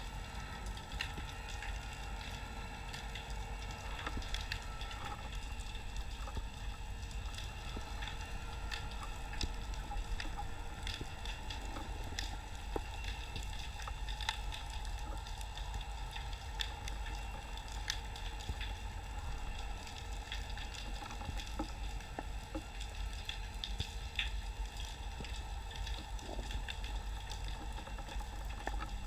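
Underwater ambience picked up through a camera's waterproof housing: a steady crackle of many small, scattered clicks over a low rumble.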